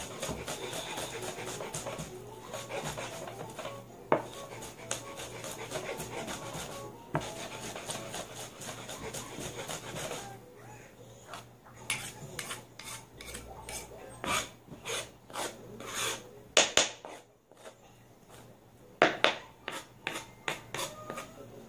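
Garlic cloves crushed and ground with a wooden pestle on a plastic cutting board: a dense rasping grind for about the first ten seconds, then a run of separate sharp knocks.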